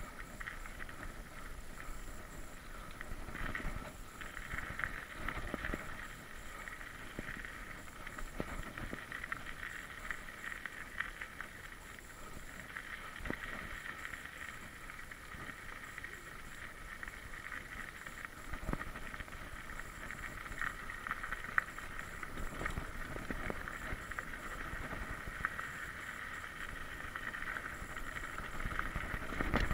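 Mountain bike rolling along a dirt trail: low rumble with frequent small bumps and rattles from the ground, under a steady high-pitched buzz.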